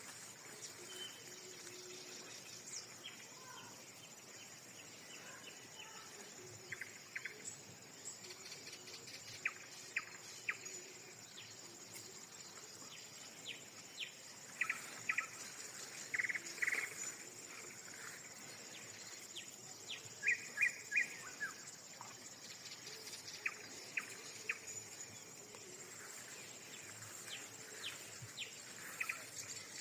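Birds chirping in short calls, scattered through and loudest in a few quick clusters around the middle and about twenty seconds in, over a steady high-pitched insect buzz.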